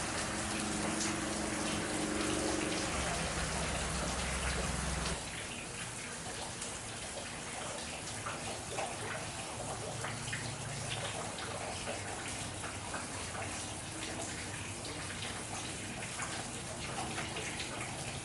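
Rain falling steadily, with scattered drops striking close by. A low steady hum runs under it for the first five seconds, then stops abruptly as the sound changes.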